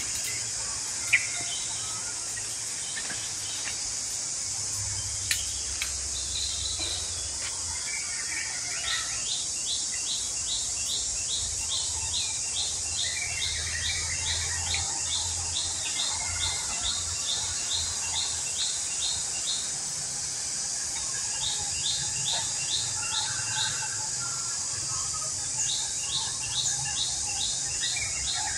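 Outdoor nature ambience: a steady high insect buzz, with a bird repeating a short high chirp about twice a second in long runs. There are a few sharp clicks near the start, the loudest about a second in.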